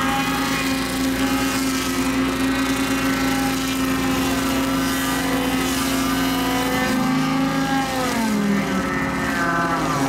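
ASV RT-120 compact track loader running a hydraulic rotating tree saw whose circular blade spins against a tree trunk. The steady machine tone sags in pitch near the end as the blade cuts into the wood.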